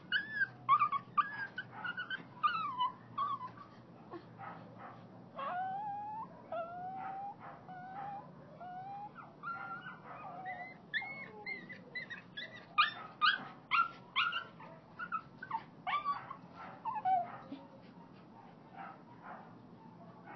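Dog crying in many short, high-pitched whines and whimpers, with a run of lower, sliding cries in the middle. The cries thin out near the end.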